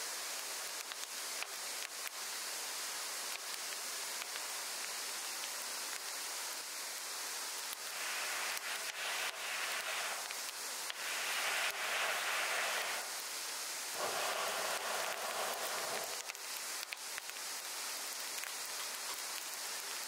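Steak sizzling in a cast-iron skillet over a wood fire, a steady hiss with the fire crackling in small sharp pops. The sizzle swells louder three times in the middle.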